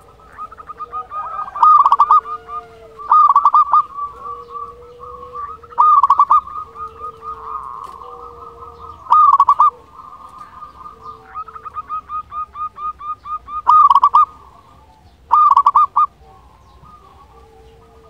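Zebra dove (perkutut) singing: rapid trains of short, staccato cooing notes, broken every few seconds by a louder cluster of notes, about six times.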